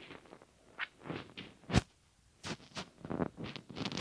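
Fabric and cutting tools being handled on a sewing table: a series of short rustles and scrapes, with one sharp click a little under two seconds in.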